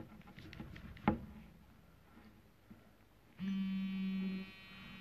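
A click about a second in, then a steady low buzz lasting about a second: a smartphone vibrating as it signals that charging has begun.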